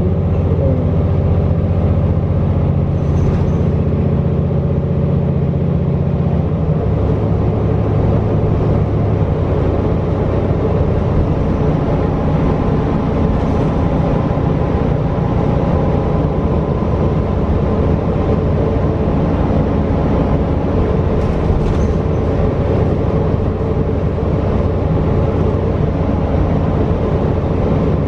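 Cummins L9 inline-six diesel and Allison six-speed automatic transmission of a New Flyer XD40 transit bus running, heard from inside the cabin near the rear: a steady drone with a layer of whine, its note shifting about six seconds in.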